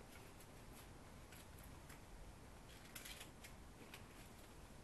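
Faint rustling and small crinkling clicks of packaging being handled while unpacking a box, coming irregularly and a little louder about three seconds in.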